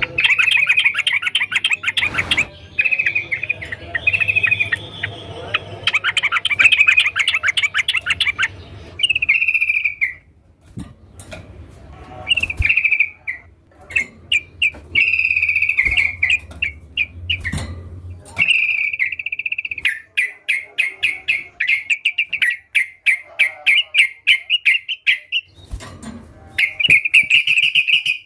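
Yellow-vented bulbul (trucukan) singing loudly and continuously: repeated phrases of rapid bubbling chirps, each lasting a second or two, with brief pauses between them.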